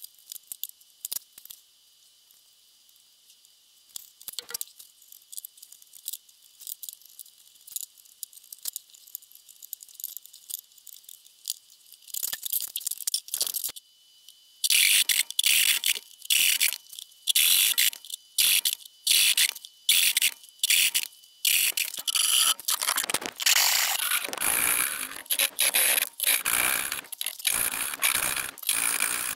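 Hand tools working wood while cutting dovetails. The first half holds faint scratches and ticks of marking out. From about halfway come loud rasping strokes about one a second, which turn quicker and closer together near the end.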